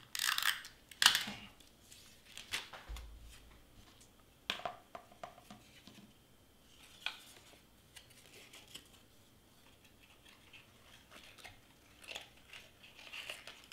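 Cardstock being handled and pressed down onto tape: scattered rustles and short clicks, loudest about a second in, then sparser ticks.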